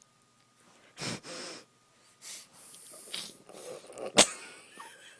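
A run of short, breathy nasal snorts and sniffles, several in a row, the sharpest and loudest one about four seconds in.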